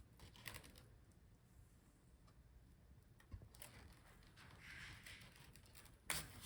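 Faint handling noises of laptop parts: soft scattered clicks and light rustling, with one sharper click near the end.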